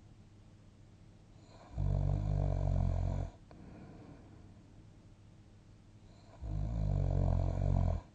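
A person snoring in sleep: two loud snores of about a second and a half each, one about two seconds in and one near the end, with much quieter breathing between them.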